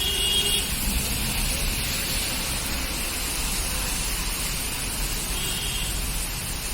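Moderate rain falling steadily, with a low rumble of road traffic underneath. Two brief high-pitched tones sound, one at the start and one near the end.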